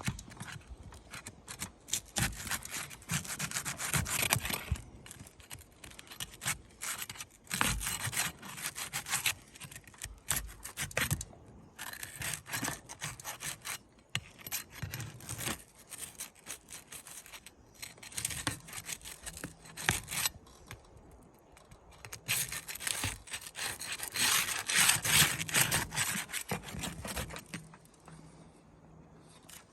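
Flat pry bar scraping and rubbing under asphalt roof shingles to break their seal strips, in repeated bouts of a few seconds each with sharp clicks in between.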